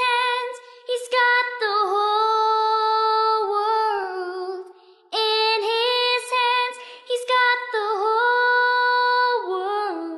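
A girl singing solo and unaccompanied, two long sung phrases with a short breath between them a little before halfway.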